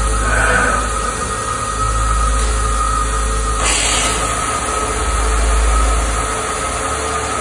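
Cutting torch of a Peddinghaus beam coping machine lighting up about three and a half seconds in and cutting into the steel section with a loud, steady rushing hiss, over the even hum of the machine.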